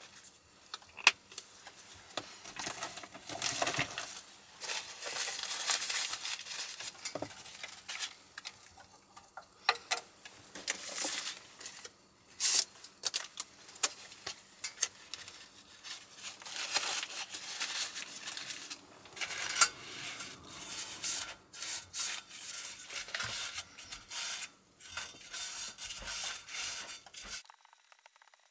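Irregular clicks, taps and short rubbing sounds of hands handling a plastic squeeze bottle and utensils at an electric takoyaki pan. Near the end a utensil works in the pan's wells.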